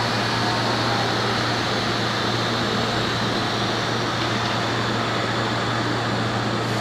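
Steady mechanical hum and hiss of a train at a station platform, likely its equipment and air conditioning, over a constant low drone.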